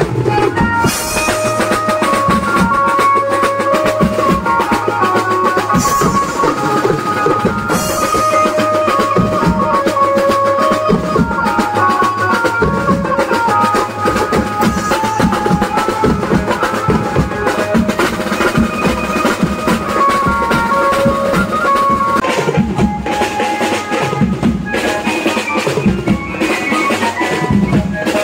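Live garba band music: a melody of held notes stepping up and down over dense, steady drumming and bass.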